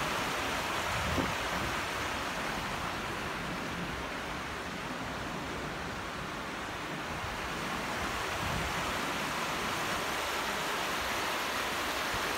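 Creek water running over stones: a steady rushing hiss, a little softer in the middle. A soft bump about a second in.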